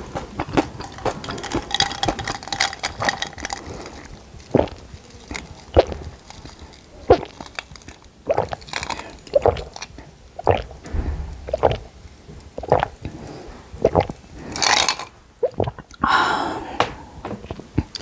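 Mouth sounds of a person drinking through a straw: a run of separate swallowing gulps about once a second, mixed with small lip and tongue clicks, and a short breathy sound near the end.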